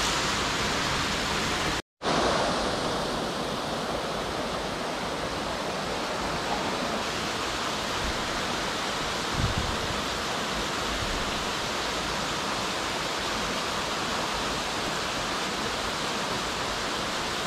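Steady rush of a mountain stream and small waterfall pouring over rocks. The sound cuts out for a split second about two seconds in, and there is one faint low knock about halfway through.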